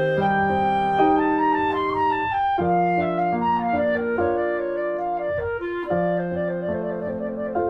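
Background music: a gentle melody played on clarinet-like woodwind over piano.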